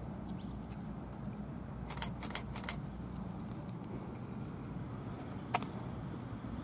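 Low, steady diesel rumble of an approaching railmotor, heard from a distance. A few sharp clicks come about two seconds in, and one more near the end.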